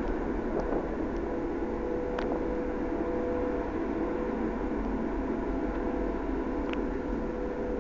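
The Condor Rapide high-speed catamaran ferry's engines run with a steady drone and hum as it manoeuvres slowly in to dock, under a steady rushing noise.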